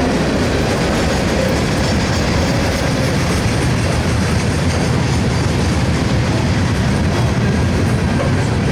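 Freight train cars rolling past close by, a steady rumble and clatter of steel wheels on the rails.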